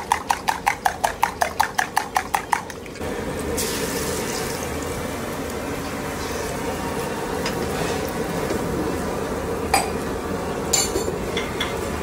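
Eggs beaten with a spoon in a steel tumbler: fast, even clinking, about six strokes a second. About three seconds in it gives way to a steady sizzle of beaten egg frying as an omelette in a pan over a gas flame, with a few metal clinks near the end.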